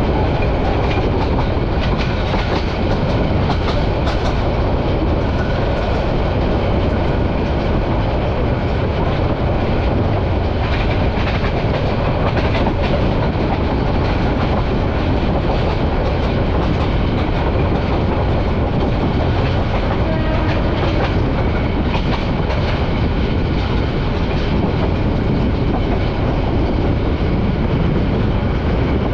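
Bangladesh Railway passenger train running along the line, heard from inside the carriage: a steady rumble of wheels on rails with scattered clicks of clickety-clack.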